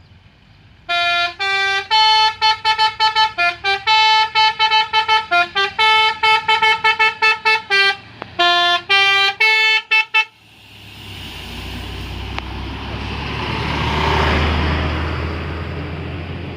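A bus telolet horn playing a quick tune of short notes at changing pitches for about nine seconds. It stops, and a vehicle drives past, growing louder to a peak and then fading.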